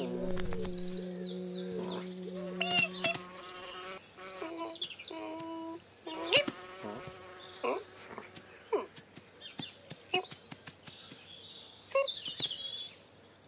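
A bee's steady buzz over the first three seconds or so, then short bird chirps on and off. Brief falling cat calls come in the middle.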